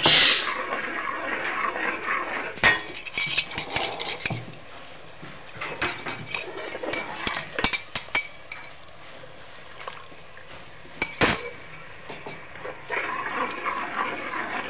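Slotted steel spoon stirring and scraping a masala frying in oil in an aluminium pot, with the oil sizzling and several sharp clinks of the spoon against the pot.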